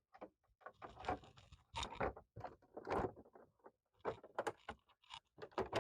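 Plastic back cover of an all-in-one PC being slid into position on the case: scattered scrapes and light clicks of plastic against plastic, some two dozen over a few seconds.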